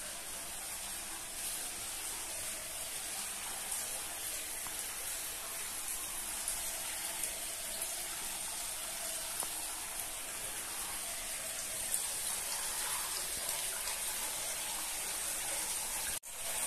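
Spring water running steadily through a stone channel into a basin. The sound is an even hiss that breaks off for an instant near the end.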